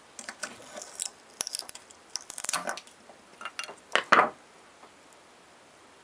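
Small hard parts being handled and knocked together: a scatter of irregular clicks, clatters and rustles, with the loudest knocks about four seconds in, after which it stops.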